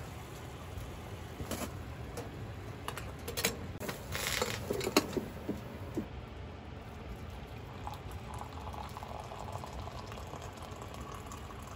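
A few clinks and knocks as an enamel coffee pot is handled, then from about eight seconds hot coffee pouring from the pot into a glass mug for about four seconds, over a steady low rush.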